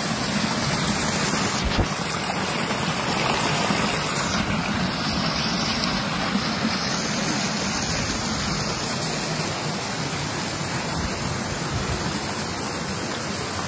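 Steady rush of water cascading down a narrow stone-lined channel in a series of small falls.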